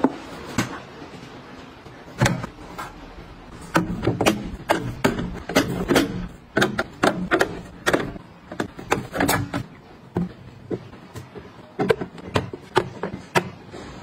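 Knocking on an LG InstaView refrigerator's glass door panel, then a run of sharp clacks as drink cans and bottles are set down one after another on the plastic door-in-door shelves.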